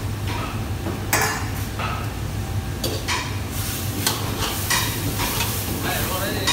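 Stir-frying in a wok: a metal ladle repeatedly scraping and knocking against the wok while food sizzles in hot oil, with a louder burst of sizzling about halfway through. A steady low hum runs underneath.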